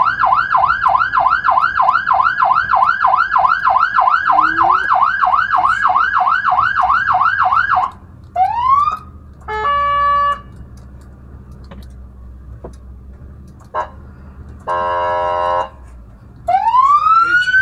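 Fire engine's siren on a fast warbling yelp, about three or four warbles a second, heard from inside the cab over the engine's low rumble, sounding to make traffic clear a path; it cuts off about eight seconds in. After a brief upward whoop come two short horn blasts a few seconds apart, and near the end the siren starts again with a long rising wail.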